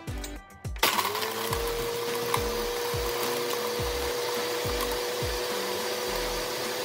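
Countertop blender switching on about a second in, its motor spinning up quickly to a steady whine as it blends ice and frozen pineapple into a frozen drink. Background music with a regular beat plays underneath.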